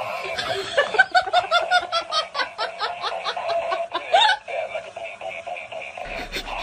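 Laughter: a quick run of short ha-ha bursts, about four or five a second, for around three seconds, ending about four seconds in.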